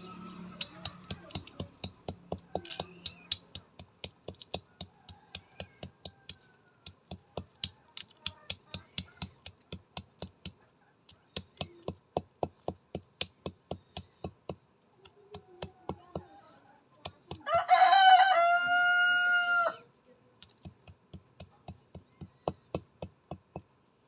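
Chickens pecking grain off hard dirt ground: a long run of sharp taps, several a second, in bursts. About seventeen seconds in a rooster crows once, loud, for about two and a half seconds.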